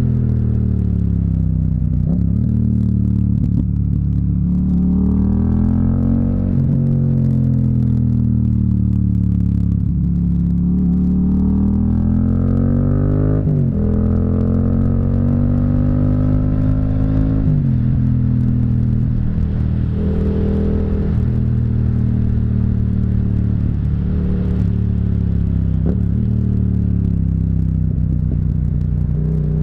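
Yamaha MT-07's 689 cc parallel-twin engine under riding load. Its note rises and falls with the throttle, climbing twice through the revs and dropping sharply at each upshift, about halfway through and a few seconds later, then easing back.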